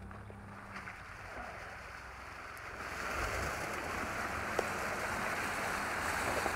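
An old Ford car driving through a deep flooded, slushy rut, water and slush splashing under its tyres over a low engine rumble, growing louder from about three seconds in as the car comes up close. One sharp click about halfway through.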